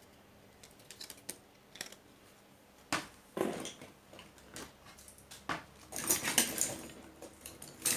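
Scattered clicks and knocks of small hard objects being handled on a workbench, with a louder run of clattering about six seconds in.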